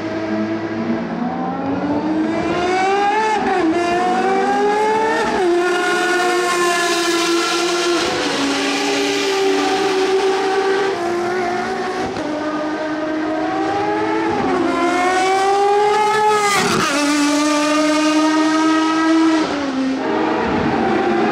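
Ferrari FXX's 6.3-litre V12 racing engine pulling hard through the gears. Its pitch climbs and then drops sharply at each gear change, about half a dozen times.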